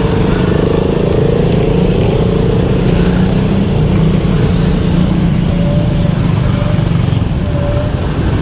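Road traffic close ahead of a moving bicycle: motorcycle, car and jeepney engines running in slow traffic under a steady low rumble, with one engine note falling slightly in pitch in the first couple of seconds.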